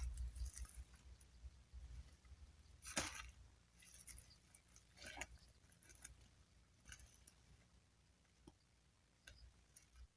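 Near silence, with a few faint soft rustles or taps, the clearest about three seconds in and again about five seconds in.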